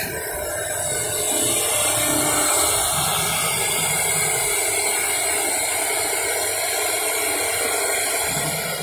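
CNC router's high-speed spindle running with its bit cutting into a wooden board: a steady, loud hissing whine that grows louder about a second in and then holds.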